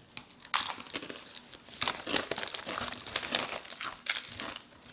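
Snack wrapper being crinkled and torn open by hand, an irregular run of crackling rustles.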